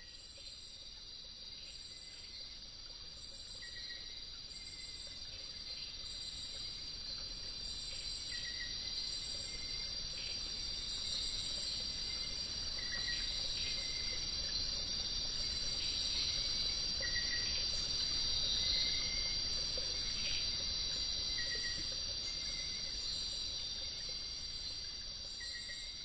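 Rainforest insect chorus: a steady high-pitched buzzing with short chirps every second or two, swelling slowly and then fading out near the end.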